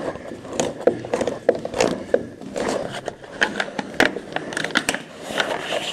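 Irregular scraping and sharp clicks of a locksmith's tool worked in the gap between a door and its frame, the rubber seal removed, feeling for the latch during a non-destructive door opening.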